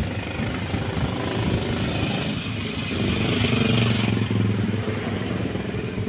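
Street traffic: motor vehicle engines running close by, swelling as one passes around three to four seconds in.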